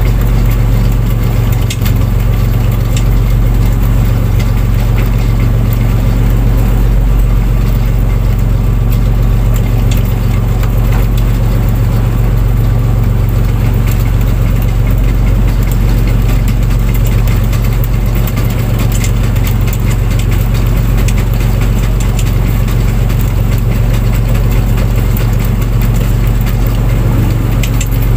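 Fishing boat's engine running steadily with a loud, even, low drone.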